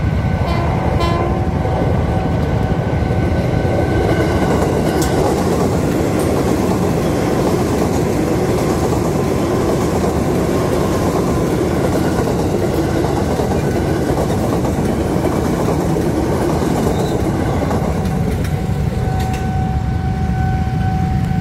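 Electric commuter train passing close by at speed: a steady loud rumble of wheels on rail with a clickety-clack of wheels over the rail joints. A steady pitched tone sounds in the first second and comes back near the end as the train clears.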